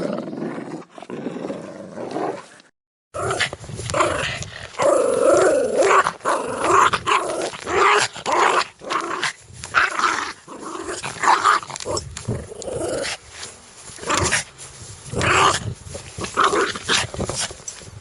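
Angry dogs growling in repeated bursts, with a few sharp barks. About three seconds in there is a brief dead silence as one recording ends and the next begins.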